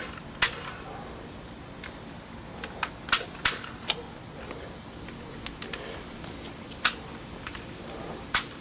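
Toy pistols being fired in sharp clicks and snaps: about fifteen at uneven spacing, five of them louder than the rest.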